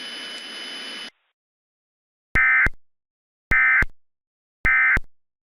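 Emergency Alert System end-of-message code: three identical short digital data bursts about a second apart. Before them, a steady radio static hiss cuts off suddenly about a second in.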